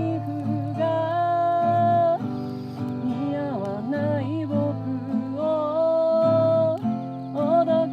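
Acoustic guitar with a voice singing long, held notes that glide from pitch to pitch; no words are made out.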